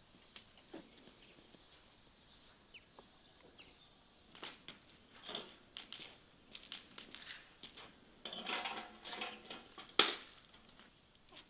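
Wood fire in a metal brazier crackling and snapping irregularly as the wood is handled and fed, with a denser run of crackling a little past eight seconds and one sharp knock about ten seconds in.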